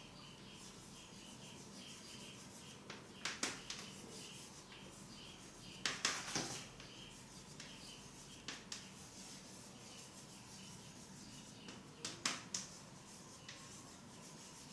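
Faint scratching strokes of writing on a board, in four short spells of a second or less.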